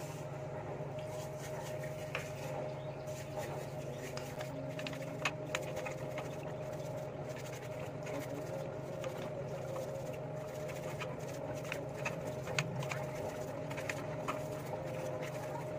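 Gasoline being scrubbed by hand inside a scooter's CVT case, with scattered light clicks and drips over a steady low hum.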